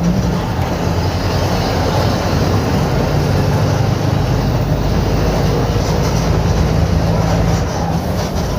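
Diesel engine of a Mercedes-Benz OF-1721 BlueTec 5 bus running steadily with a loud, rough low hum. The exhaust is holed, which lets the engine sound out harshly.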